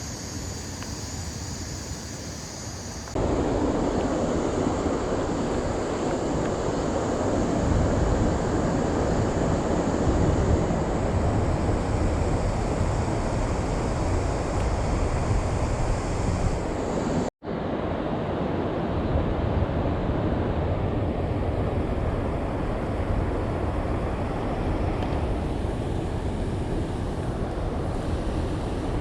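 Steady rush of flowing creek water. It jumps louder about three seconds in and cuts out for an instant partway through.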